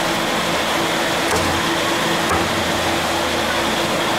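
Steady whooshing ventilation noise with a low hum. Two faint knocks of a cleaver cutting through roast chicken on a chopping board come about one and two seconds in.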